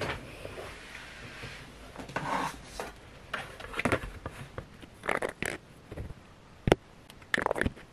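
A cosmetic jar of sleeping mask being handled and opened: a series of short clicks and scrapes from the lid and jar, with one sharp click near the end.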